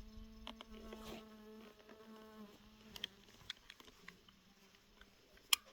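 A fly buzzing close to the camera microphone, a steady hum that wavers slightly and fades after a couple of seconds. There are a few faint clicks, and a sharper click near the end.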